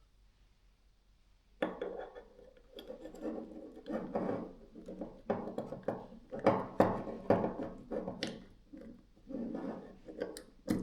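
Parts of a hammer drill's gearbox being worked into place by hand, a second and a half in: a run of irregular knocks, scrapes and rubs with some ringing, two or three a second.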